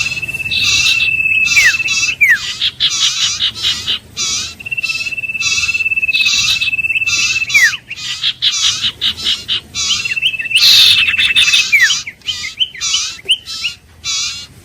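Iora song: a long, level trilled whistle held for about two seconds and ending in a quick downward-sliding note, given three times, among fast repeated high chirping notes.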